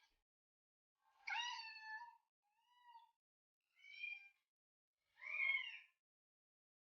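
Cat meowing: four short, high meows with gaps between them, the first and last the loudest.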